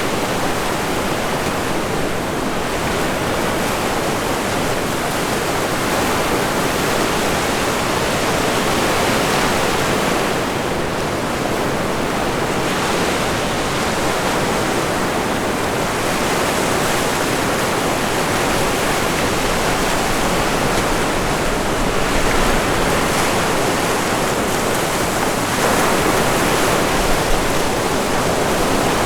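Ocean surf breaking on a beach, a steady rushing wash that swells and eases every few seconds, with wind buffeting the microphone in low gusts about two-thirds of the way in and near the end.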